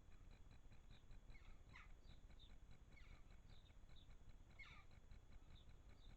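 Faint garden bird calls: three short notes that fall in pitch, a second or more apart, over a low rumble and a faint, regular high ticking.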